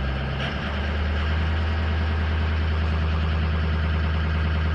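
Ford 6.0L Power Stroke V8 diesel, still cold, raised from idle to a fast idle of about 1,200 rpm, stepping up about half a second in and then running steadily. Its variable-geometry turbo, which the mechanic finds seized, builds no boost.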